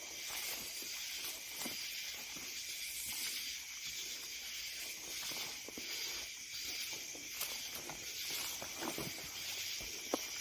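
Steady, high-pitched insect chorus, pulsing evenly, over scattered footsteps and small clicks, with one sharper click near the end.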